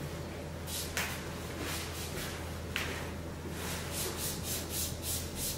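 Hand-held trigger spray bottle misting water onto a silkscreen, in quick short hissing squirts about three a second, with a couple of light knocks earlier on. The water is wetting retarder-thinned acrylic paint on the screen so that it runs.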